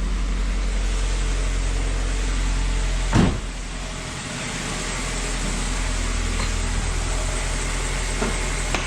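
2002 Ford Focus's 2.0-litre four-cylinder engine idling steadily, running with engine flush in the oil to loosen deposits. A single loud thump about three seconds in and a couple of light knocks near the end.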